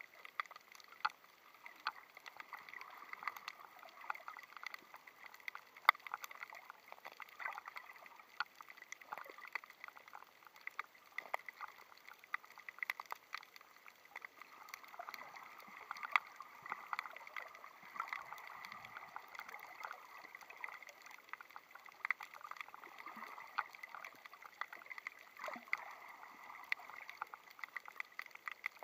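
Underwater sound on a shallow coral reef: a soft hiss of moving water with irregular sharp clicks and crackles throughout, one louder click about six seconds in.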